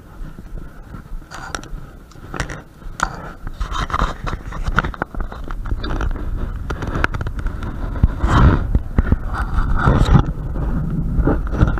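Footsteps and scraping on a rusty metal stairway, with scattered clicks and knocks. After a cut, wind buffets the microphone on an open rooftop as a low rumble that grows louder toward the end.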